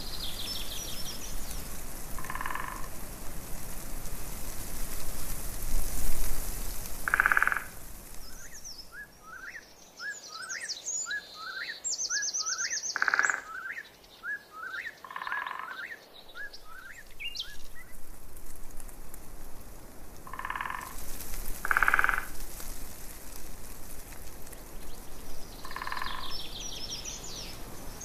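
Frogs calling in short pulsed trills every few seconds, with birds chirping and trilling for several seconds in the middle.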